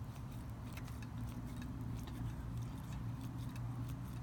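Parker 51 Vacumatic filler plunger being pumped over and over, a run of faint clicks as the newly installed diaphragm pumps the pen full.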